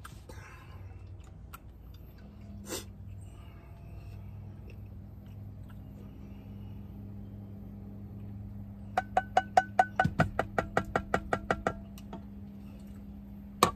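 A utensil scraping and tapping in a metal frying pan while serving food: a quick run of sharp, slightly ringing clicks lasting about three seconds, over a steady low hum.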